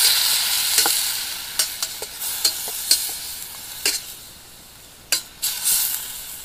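Oiled mackerel sizzling in a hot stainless steel pan while a metal spatula scrapes and clicks against the pan as the fish is turned and broken up. The sizzle is loudest at the start and dies down over a few seconds, flaring again briefly near the end.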